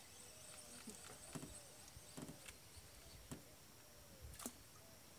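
Near silence, with a faint repeated arching call in the background and a few soft clicks and knocks spread through it.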